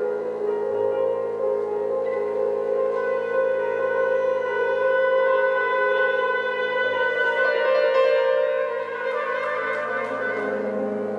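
Contemporary chamber music for flute, oboe, piano and double bass, with long sustained notes from the winds held steadily. A lower held note comes in near the end.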